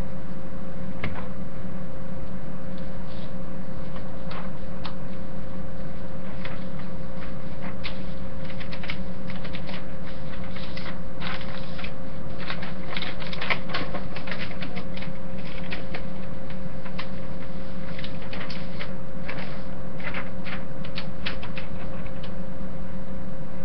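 A sheet of paper being handled and folded: irregular crackling, rustling and creasing, busiest through the middle, over a steady low hum.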